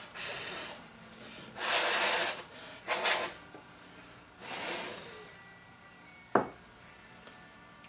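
Gloved hands handling a steel bearing adapter on the bench: several short bursts of rubbing and scuffing, the loudest about two seconds in, then a single sharp click a little after six seconds.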